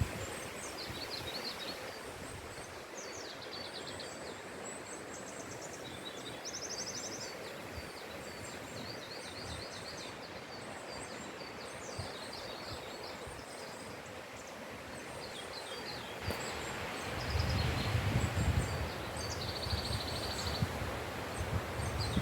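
Wind moving through forest trees in a steady rustle, with small birds chirping and trilling throughout. In the last few seconds gusts hit the microphone and add a low rumble.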